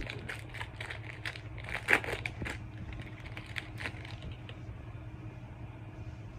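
Foil booster-pack wrapper being torn open and crinkled, a quick run of crackles over the first four seconds, loudest about two seconds in, then dying down.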